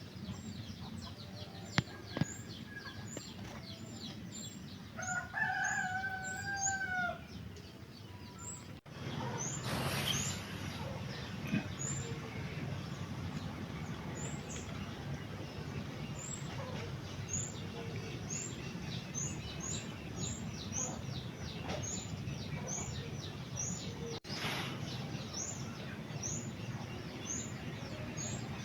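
Short, high bird chirps repeated about once or twice a second, with a rooster crowing once about five seconds in over a steady low background hum.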